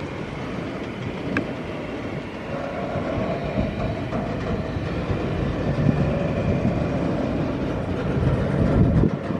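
Railroad train passing close by: a steady heavy rumble of wheels running on the rails.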